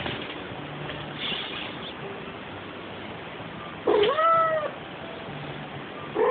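Female cat in heat calling: one loud, drawn-out meow about four seconds in that rises and then falls in pitch, with the next call starting at the very end.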